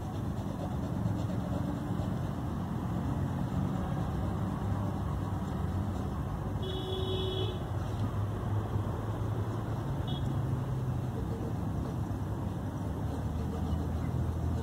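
Steady low rumble of background traffic, with a short high tone about seven seconds in and a briefer one near ten seconds.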